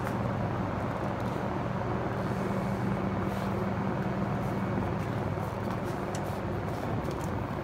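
A steady low mechanical hum over constant background noise, with a few faint light clicks.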